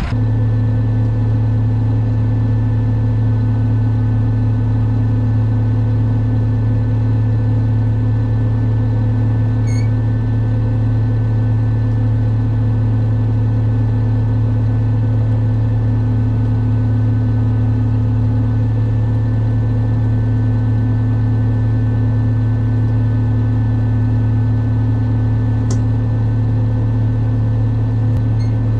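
Diesel tractor engine running at a constant speed, a steady loud drone with no revving or change in pitch.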